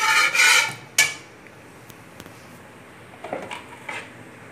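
Steel slotted spoon scraping and clinking against a steel kadai as it is stirred through ghee, with a sharp clink about a second in and a few light taps near the end.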